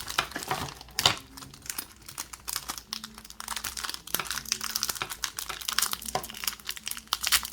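A small plastic bag crinkling and crackling as it is pulled and torn open by hand, with a sharp crackle about a second in; the bag is hard to open without scissors.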